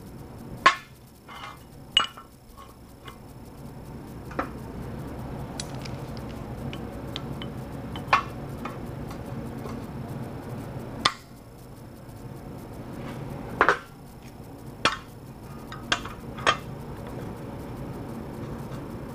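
Steel plates and clamps clinking and knocking against a steel I-beam as a bracket is positioned and clamped: about nine sharp metal clinks, spaced irregularly. Underneath runs a steady low hum that grows louder a few seconds in.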